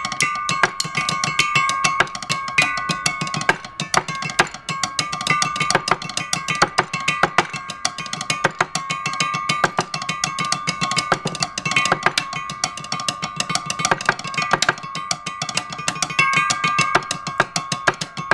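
A row of square steel box-section tubes struck rapidly with round-headed mallets, several strokes a second. Each tube rings at its own pitch, so a few bell-like tones hang over a continuous patter of hits.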